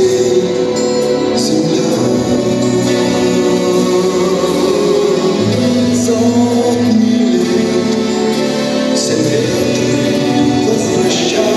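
Music: voices singing together over an instrumental backing.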